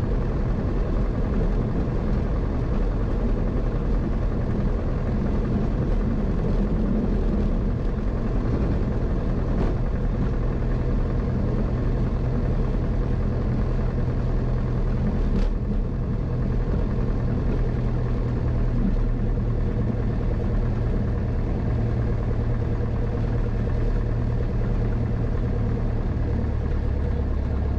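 Single-engine Grumman American AA-5 light aircraft's piston engine and propeller running steadily at low power, heard from inside the cockpit as the plane rolls slowly along the runway after landing. The low hum shifts slightly near the end.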